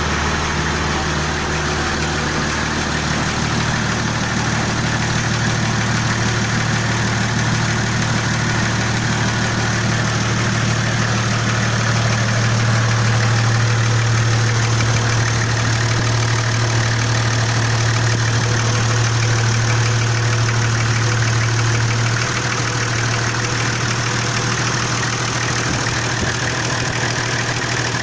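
Nissan TD42 inline-six diesel engine idling with a knock that appears only when the engine is hot; the owner cannot tell its cause. The low engine hum strengthens about three seconds in and eases back a little near the end.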